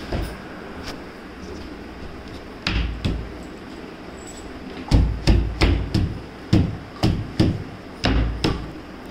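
Heavy knocks of hammer blows on the wooden panels of a flat-pack wardrobe being assembled. There are a few single blows at first, then a fast run of about three a second from about halfway through.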